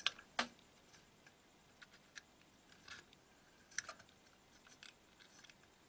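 Faint, irregular clicks and light taps as a new electrolytic capacitor is handled and its leads are fitted into the holes of a CRT television's circuit board, the sharpest click about half a second in.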